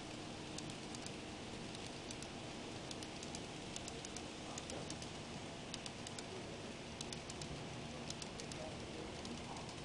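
HO scale model freight cars rolling past, their wheels clicking lightly and irregularly on the track over a steady hiss.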